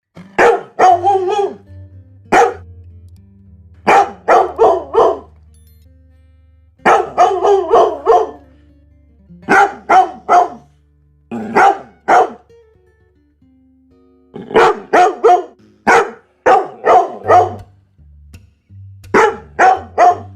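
Dog barking in quick runs of three to five barks, the runs a second or two apart.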